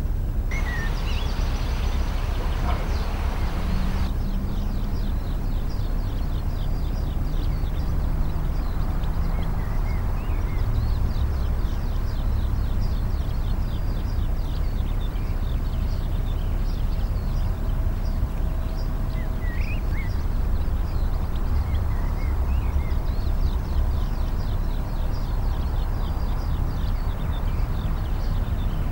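Small birds chirping, many short high notes repeated over a steady low rumble.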